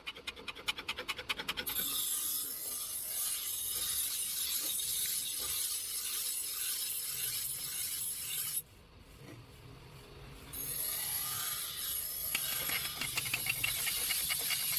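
Hand work on a sickle's metal blade: quick, even strokes, about eight a second, at the start and again from about twelve seconds in. Between them is a stretch of rougher scraping that drops quiet for a couple of seconds.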